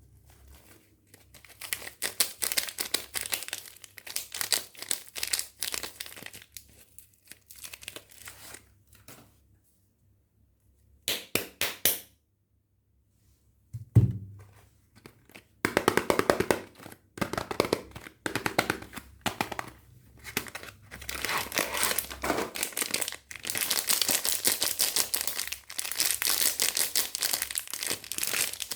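Soap packaging wrapper crinkling and tearing as soap is unwrapped, in long stretches of crackly rustling. A single low thunk comes about fourteen seconds in, after a short pause.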